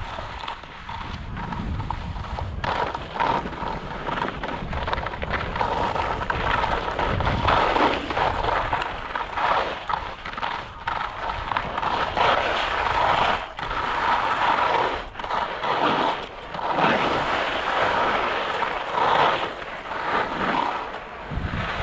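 Skis scraping over wind-crusted snow, a rough hiss that swells and fades every second or two, with wind rumbling on the microphone.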